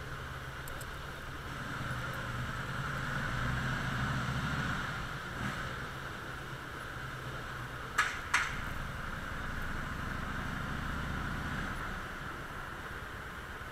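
Harley-Davidson Softail's V-twin engine running at low speed, its revs rising and easing twice. Two sharp clacks about eight seconds in.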